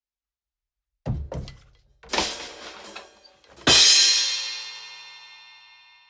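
Drum kit sound effect: two quick low drum hits about a second in, another hit with a cymbal splash a second later, then a loud crash cymbal that rings out and slowly fades.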